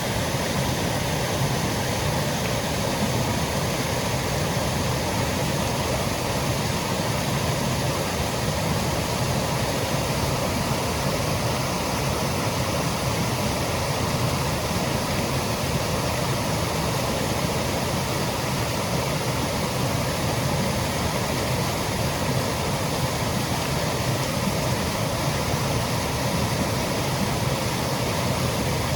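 Small woodland waterfall cascading over rocks, a steady unbroken rush of falling water.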